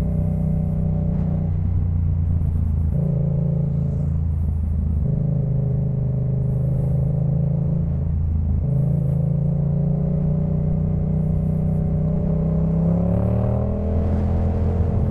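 Yamaha MT-07's parallel-twin engine running through a Jeskap K4 full exhaust while riding. The exhaust note holds steady for stretches, changes pitch several times, and rises as the bike accelerates near the end.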